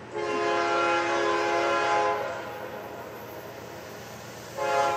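Diesel freight locomotive's air horn sounding a long, steady chord blast, with a second blast starting near the end, as it approaches a grade crossing.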